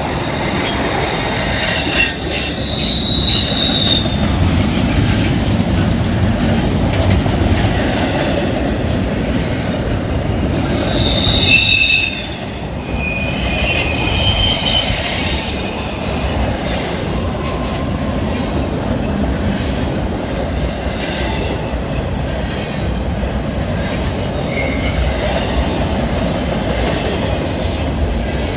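Norfolk Southern freight train rolling by, a steady rumble of wheels on rail with high-pitched wheel squeals that come and go.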